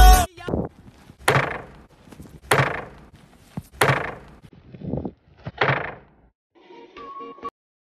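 A series of sharp knocks or thuds, about five of them roughly a second apart, each dying away quickly, followed by a fainter short sound near the end.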